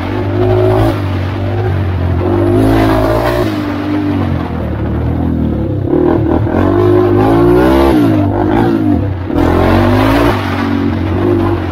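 Honda 400EX's air-cooled single-cylinder four-stroke engine revving as the quad is ridden, its pitch rising and falling over and over with the throttle, with a brief dip in power a little after nine seconds in.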